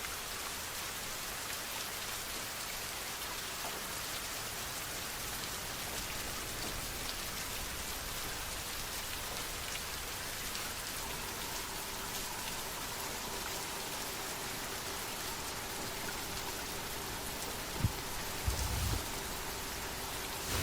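Steady rain falling, an even hiss with scattered patter of drops. Near the end there is a single low thud, then a short low rumble.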